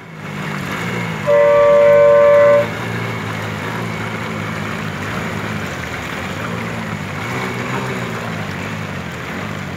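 A vehicle horn sounds once, a steady tone held for about a second and a half, over a continuous rush of flowing floodwater and a low engine hum.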